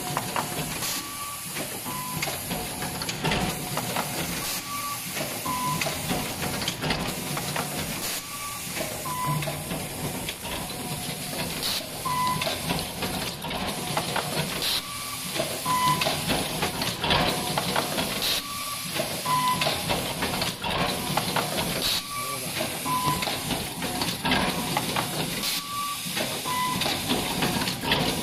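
Automatic cable foil-stripping and wire-twisting machine running: a steady hiss of compressed air with repeated mechanical clicks every second or two and short high tones recurring throughout.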